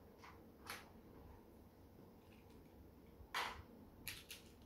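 Quiet handling noise: a few short knocks and rustles as small plastic toy vehicles are picked up and moved about, the loudest a little over three seconds in and a quick cluster near the end.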